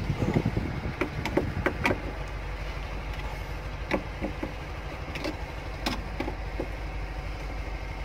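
Scattered sharp clicks and knocks of hands and tools working on parts under a motor grader's dashboard, several in quick succession in the first two seconds and then a few spaced ones, over a steady low hum.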